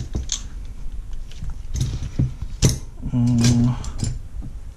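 Steel hand tools and gear puller parts being handled, with a few sharp metal clinks. About three seconds in there is a brief low hum.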